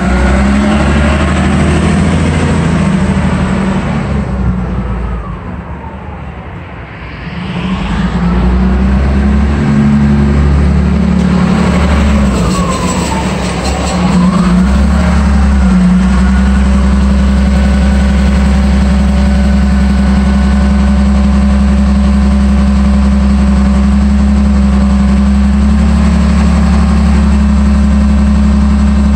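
Caterpillar 966G wheel loader's diesel engine running, its speed rising and falling over the first half as the loader drives and works its lift arms. It then settles to a steady speed with the bucket raised.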